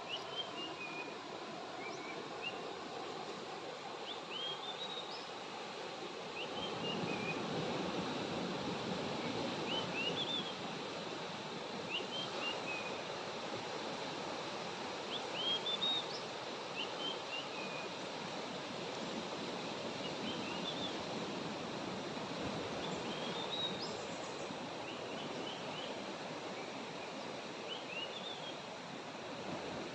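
Outdoor ambience: a steady rushing background with a small bird repeating a short, high chirping phrase about every two seconds.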